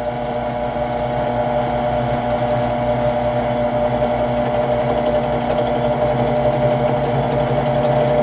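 Drill running steadily under load as a counterbore cuts into an aluminum scooter headset clamp, a constant motor hum with a light cutting noise.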